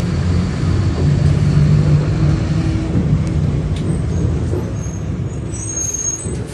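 Inside a Mercedes-Benz Ayco Magno Sport G1 city bus under way: the engine drones steadily over road rumble, and its note grows stronger about a second in. A brief high-pitched squeal comes near the end.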